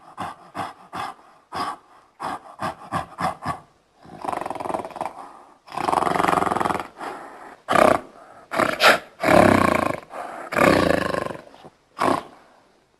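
Big cat roaring: a quick run of short, rhythmic grunts, then several long, loud roars.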